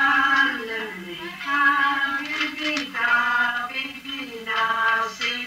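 Singing with music: a voice holding long notes that slide and waver, several phrases in a row.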